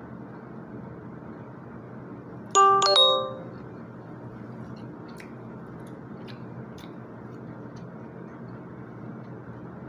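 Two-note ding-dong doorbell chime of a hotel room, rung once about two and a half seconds in, with the second note ringing on briefly.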